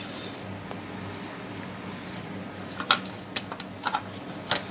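A handful of short, sharp clicks and taps from handling the opened plastic speaker casing and its wiring, scattered through the second half, over a low steady hum.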